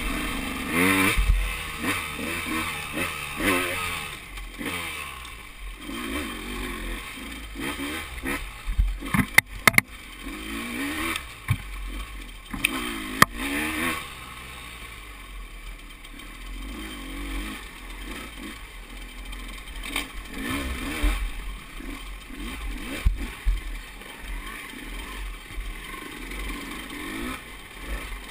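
Two-stroke single-cylinder engine of a KTM 200 XC-W dirt bike, revving up and down over and over while riding a rough trail. A few sharp knocks come around ten and thirteen seconds in.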